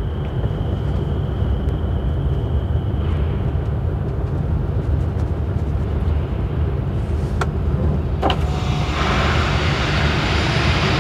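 Low, steady rumble of a motorhome's engine creeping across a ferry's car deck, heard from the cab and mixed with the hum of the ship's hold. A couple of faint clicks come around seven and eight seconds in, then a broad hiss swells near the end.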